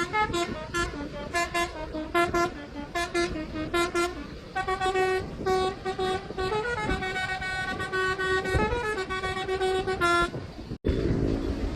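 Telolet-style multi-tone musical horn playing a tune: a quick run of short toots, then longer held notes sounding several pitches at once, over road noise. It cuts off abruptly near the end.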